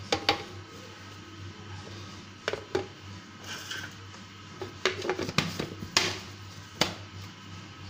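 Scattered light clicks and knocks of a plastic blender jar being handled: a spatula stirring the dry mix, then the plastic lid being fitted and pressed onto the jar.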